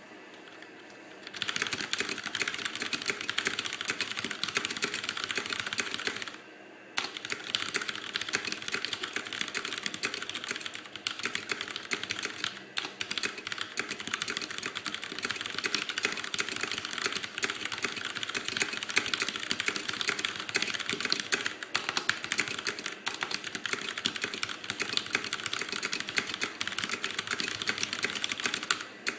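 Fast, continuous typing on a CM Storm QuickFire mechanical keyboard with linear Cherry MX Red switches: a dense, rapid clatter of keystrokes without switch clicks. It starts about a second and a half in and breaks off briefly once, a few seconds later.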